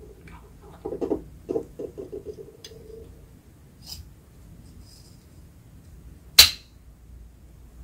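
Close handling of a metal whipped-cream charger and a 3D-printed plastic torpedo body on a wooden tabletop: a short run of light knocks about a second in, faint ticks and rubbing as the cartridge slides into the body, then one sharp click about six seconds in.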